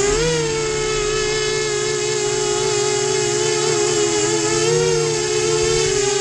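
FT250 FPV quadcopter's electric motors and propellers whining, heard from the camera on board. The pitch jumps up just after the start, then wavers up and down with the throttle, with two close tones drifting apart and back together.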